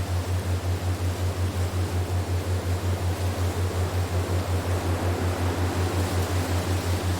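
Relaxation soundtrack: a low hum pulsing evenly about five times a second over a steady wind-like hiss.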